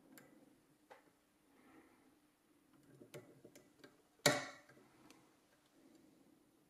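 Small metallic clicks and light scraping of a lock pick working the pins of a 5-pin Yale night latch under very light tension. A little over four seconds in there is one much louder sharp click with a brief ring.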